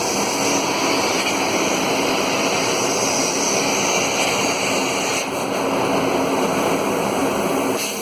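Areca nut dehusking machine running, a loud steady noise.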